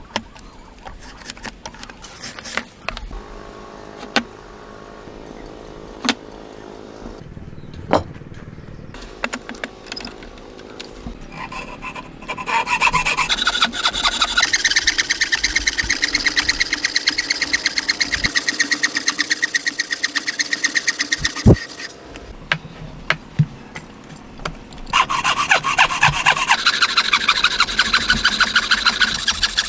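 A wooden frame saw cutting a wooden block by hand in quick, even back-and-forth strokes. It starts about twelve seconds in, stops briefly near the two-thirds mark, then resumes. Before the sawing there are a few scattered sharp knocks.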